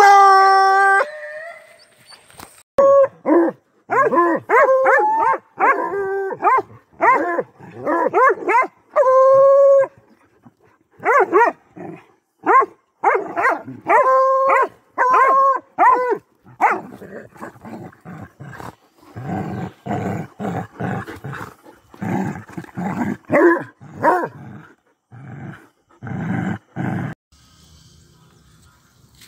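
Hunting dogs baying at a paca cornered in its hole: a long howl at the start, then runs of quick, pitched yelping barks, giving way in the second half to rougher, lower barking.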